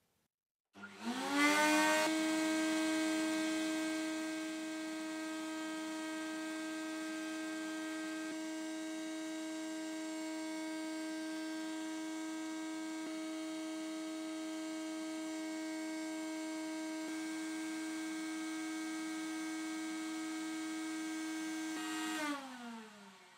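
An electric power tool's motor switches on, rises quickly in pitch to a steady whine, runs at constant speed, then winds down near the end.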